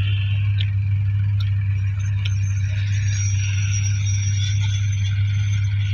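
Tractor-driven groundnut thresher running: a steady low engine drone that does not change, with a few faint clicks in the first two seconds.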